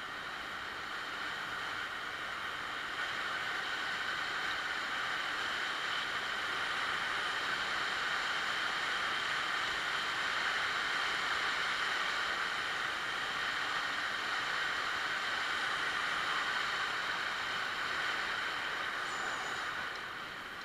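Yamaha Axis 90 two-stroke scooter riding along at a steady speed, its engine, road and wind noise heard from the rider's camera. The noise grows a little after the start and eases off near the end.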